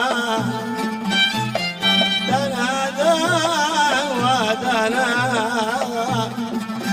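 Yemeni Lahji folk music: a melody with a wavering vibrato line, over a steady low drum beat about once a second.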